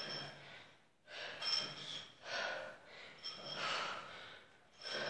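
A woman breathing hard and fast during a workout, with a sharp gasping breath about once a second, each in time with her repetitions.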